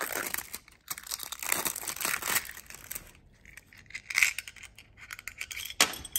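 Thin plastic wrapping crinkling and tearing as it is pulled off a metal scooter clamp, then a few sharp clicks and clinks of small metal parts being handled, the loudest about four seconds in and another just before the end.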